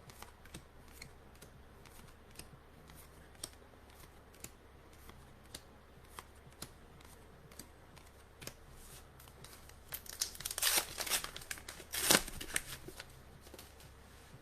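Trading card booster pack handled and torn open: soft clicks of cards being flicked through, then about ten seconds in a louder crinkling, tearing stretch of the foil wrapper lasting a couple of seconds.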